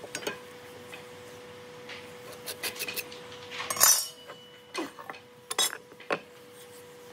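Hand marking-out on hardwood blocks: light taps and pencil scrapes with an aluminium speed square, a metallic clatter a little before the middle as the square is put down, then wooden knocks as a board is laid on top of the block. A faint steady hum runs underneath.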